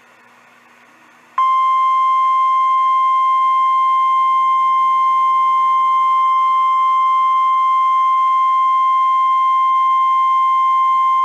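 NOAA Weather Radio 1050 Hz warning alarm tone: a single steady, loud high tone that switches on about a second and a half in and holds unchanged for about ten seconds before cutting off. The tone signals that a warning message is about to be broadcast.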